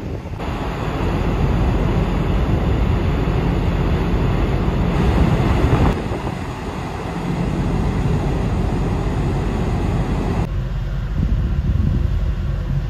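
Steady low rumble of a large ferry's machinery heard on its open deck, with wind on the microphone. The mix changes abruptly about six and ten and a half seconds in.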